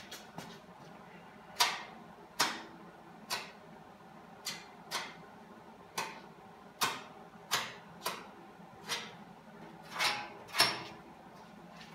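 Body filler spreader scraping filler onto a steel car fender in short strokes: about a dozen sharp scrapes, roughly one a second.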